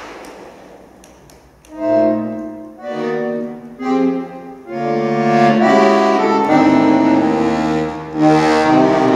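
Solo accordion in a contemporary piece: a hiss-like noise fades away, then short separate chords start about two seconds in. From about halfway, long dense chords are held, pulsing for a while, and a new chord enters near the end.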